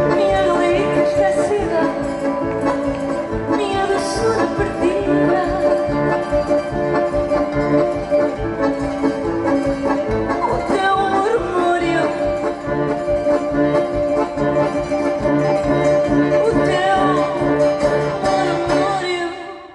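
Live acoustic band with accordion, guitars and bass playing at the close of a song, over a steady, regular bass pulse. The music stops abruptly at the very end.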